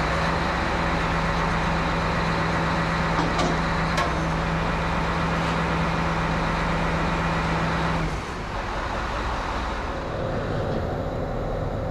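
Terex Demag AC200 all-terrain crane's engine running at raised revs for a lift, with a steady hum that drops back about eight seconds in. Two brief clicks around the middle.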